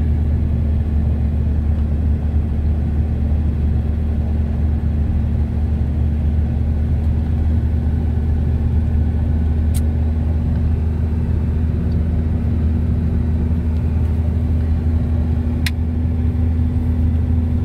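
Steady in-cabin drone of a car driving on a paved road: engine and tyre noise heard from inside the car. Two faint clicks, about ten seconds in and near the end.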